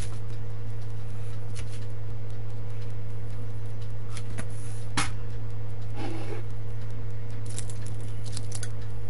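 A steady low hum, with a few scattered soft clicks and taps as a squeeze bottle of hot chili sauce and then a bottle of light soy sauce are handled and poured over a stainless steel bowl.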